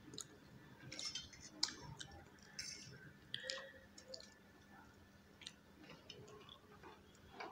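Faint eating sounds of instant noodles being eaten with forks from steel plates: soft chewing and slurping, with scattered light clicks of the forks against the plates.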